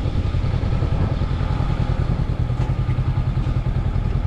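Honda CB500X's parallel-twin engine running at low, steady revs.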